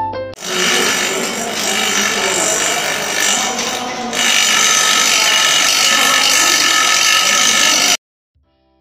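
Bench grinder wheel grinding a metal rod, a dense hissing whine with many high tones. It gets louder about four seconds in and cuts off abruptly near the end.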